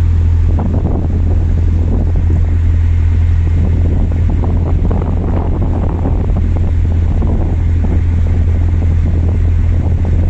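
Canal boat's engine running with a steady low drone as the boat cruises, with wind buffeting the microphone.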